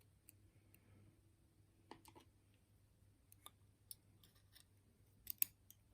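Faint, sparse small clicks and ticks of metal lock parts being handled as a pin-tumbler lock is taken apart, the loudest a quick pair about five and a half seconds in.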